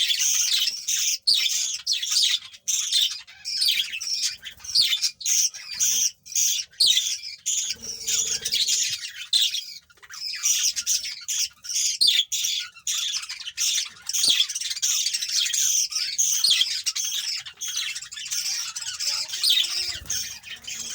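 Budgerigars and their chicks chirping and squawking nonstop in quick, high-pitched notes, the chatter of a budgie brood at feeding time.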